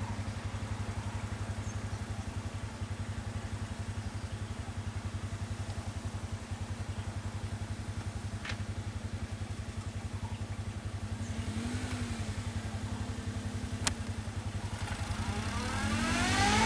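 A motor vehicle's engine idling with a steady, rapidly pulsing hum; near the end another vehicle's engine rises and falls in pitch as it comes closer and grows much louder.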